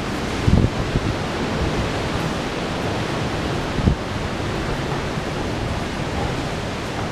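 Wind buffeting a phone's microphone: a steady rushing noise with low gusty bumps, one about half a second in and another about four seconds in.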